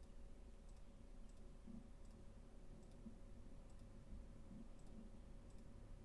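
Several faint single computer mouse clicks, spaced irregularly, over quiet room tone with a faint steady hum.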